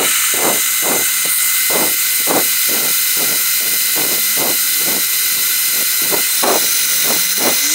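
A cordless drill spins a diamond-coated ceramic hole saw that grinds into porcelain tile, making a steady high grinding hiss. Irregular low pulses come through it about twice a second.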